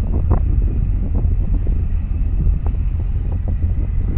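Wind buffeting the microphone: a loud, steady low rumble with frequent brief crackles.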